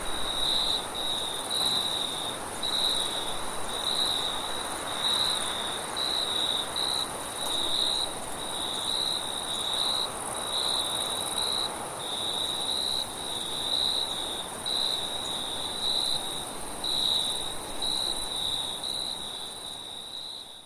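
Crickets chirping in rhythmic pulses, about two a second, over a steadier, higher insect trill and a constant hiss of wind. The whole fades down near the end.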